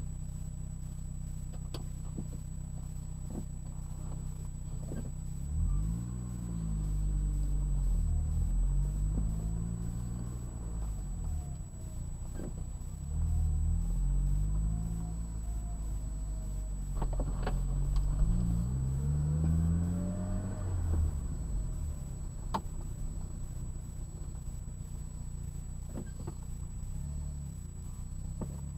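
1999 Saab 9-3 Turbo's turbocharged four-cylinder engine heard from inside the car: a steady low run, then two hard accelerations a few seconds apart in which the engine note climbs, drops back at each gear change and climbs again. It then settles into a steady cruise.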